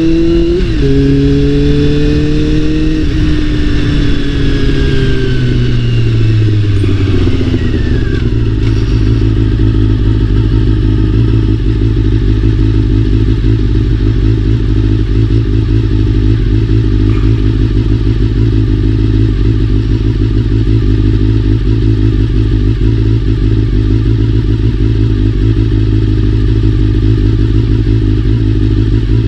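Honda CBR400RR's inline-four engine. Over the first several seconds its pitch shifts and then falls as it slows, and it then idles steadily for the rest of the time.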